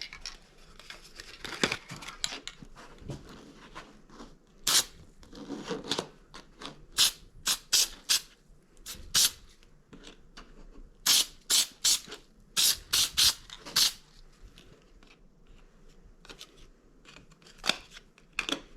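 Aerosol headliner adhesive being sprayed onto the edge of a vinyl door card in many short hissing bursts, several in quick runs.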